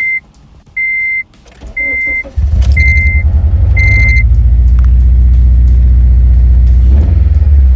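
Car warning chime beeping about once a second, then about two seconds in the four-cylinder car engine cranks, catches and runs loudly with a pulsing idle. The chime stops about four seconds in. The car is running after a spark plug swap on cylinder 2, where a misfire was logged. That misfire later turned out to be a faulty fuel injector.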